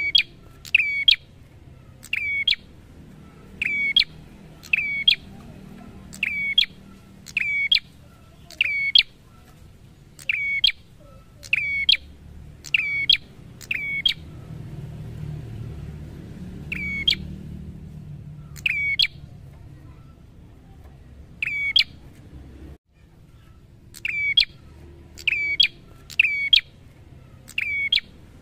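A caged tailorbird calling: a loud, sharp note repeated about once a second, with a couple of short pauses partway through.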